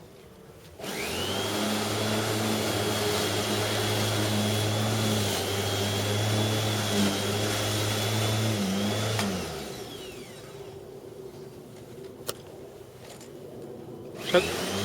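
Bosch Rotak 34 corded electric rotary lawnmower switched on, its motor spinning up with a rising whine about a second in and running steadily. About nine seconds in it is switched off and winds down. After a click it starts up again near the end.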